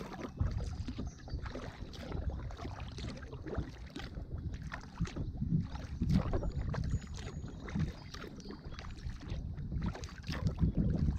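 Kayak being paddled on a river: irregular splashes and drips of water from the paddle, over a low wind rumble on the microphone.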